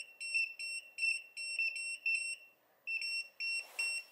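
Retekess TD163 wireless restaurant guest pagers beeping on being called: short, high electronic beeps about three a second, with a brief pause about two and a half seconds in before they resume.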